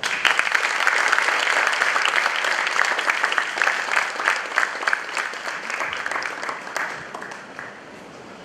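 Audience applauding, starting suddenly and dying away over the last few seconds.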